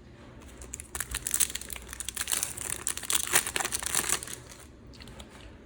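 Crinkling of a plastic trading-card packet wrapper being handled, a dense run of small crackles that starts about a second in and dies away after about three seconds.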